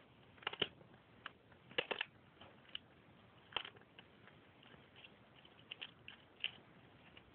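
Cat crunching on the bones of a rabbit it has caught: irregular sharp cracks and crunches, about a dozen, spaced unevenly with short quiet gaps.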